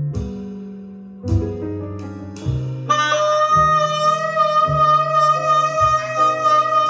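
Jazz ballad played back through Rogers LS3/5A Classic SE bookshelf speakers. Plucked bass notes about every second under soft chords, then from about three seconds in a long held wind-instrument melody note.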